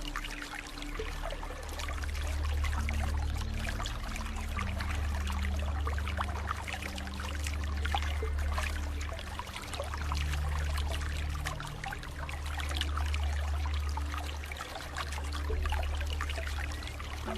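Water trickling and splashing steadily, like a small stream, with soft low sustained music notes underneath that shift every couple of seconds.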